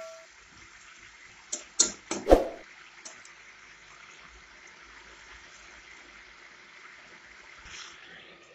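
Potatoes and peas sizzling and bubbling in oil and spices in a kadai, a steady frying hiss. About two seconds in, the spatula clinks and scrapes against the pan a few times.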